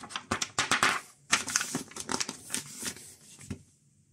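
Paper rustling as pages of a printed instruction booklet are turned and flattened, in a quick run of short rustles that stops about three and a half seconds in.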